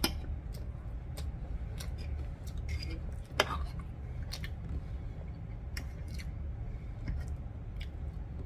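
A metal fork clicking and scraping against a ceramic dinner plate while someone eats, in scattered short clicks with the sharpest one about three and a half seconds in, over a steady low hum.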